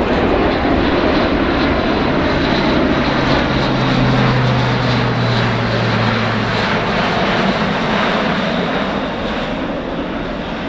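Airbus A400M's four turboprop engines passing by in a loud, steady roar with a low propeller hum. A tone in the roar slides lower as the aircraft goes past, and the sound eases slightly near the end.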